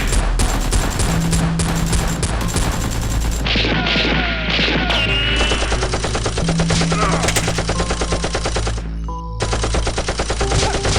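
Bursts of rapid automatic gunfire sound effects over background music, with a short break in the firing about nine seconds in.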